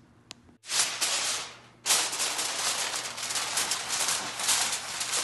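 Aluminium foil crinkling and crackling as a sheet is spread and pressed down over an aluminium baking tray, sealing it. It starts loud about a second in, eases off briefly, then goes on as a steady crackly rustle.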